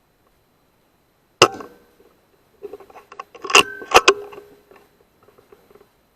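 A single sharp shot from a .22 Weihrauch HW100 pre-charged air rifle about a second and a half in, followed a second later by a run of loud metallic clicks and clacks with a brief ring, the two loudest near the middle.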